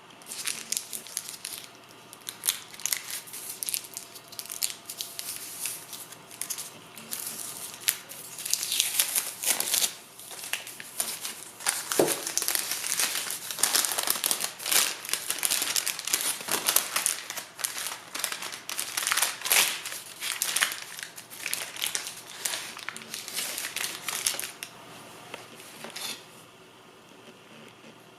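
Crinkly packaging, such as a plastic wrapper or bag, being crumpled and rustled by hand in irregular bursts of crackling, heaviest through the middle and easing off near the end.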